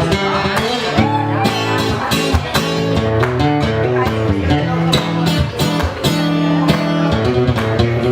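Live band music led by strummed guitar, playing an instrumental passage without singing.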